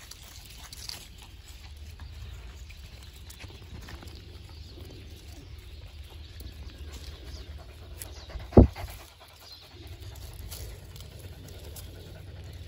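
Doodle puppies panting and sniffing as they play, with a single loud thump about two-thirds of the way through.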